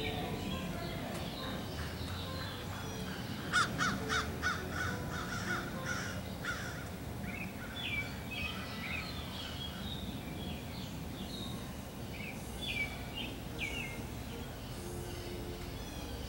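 Wild birds calling: a quick run of harsh, repeated calls about three and a half seconds in, then scattered short chirps and whistled notes. A steady low background rumble runs underneath.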